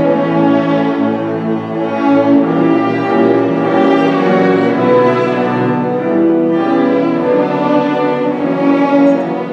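A string ensemble of violins and cellos playing classical music together, the bowed notes layered with steady held pitches.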